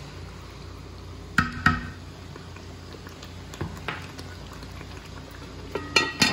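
Spoon stirring chicken curry in a cooking pot, knocking twice against the pot about a second and a half in, with a few lighter clinks. Near the end the lid clatters onto the pot. A steady simmer of the curry runs underneath.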